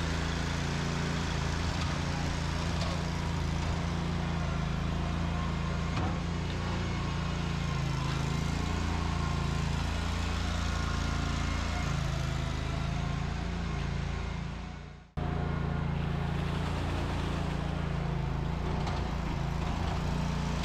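An engine running steadily with a constant low drone. It cuts out abruptly about three-quarters of the way through and comes straight back.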